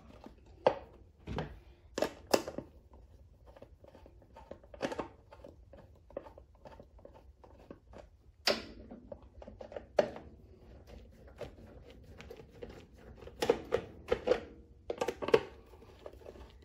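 Hand nut driver and a plastic air-cleaner cover giving scattered small clicks, taps and scrapes as the cover's screws are driven back in, with a few louder knocks about 2, 8 to 10 and 14 to 15 seconds in.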